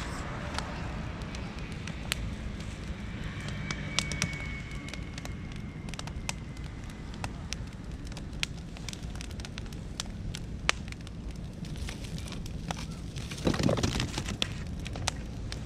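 Beech and oak wood fire burning, crackling with irregular sharp pops over a steady low rush. A faint thin whistle sounds for a couple of seconds about three seconds in, and a brief louder low rush comes near the end.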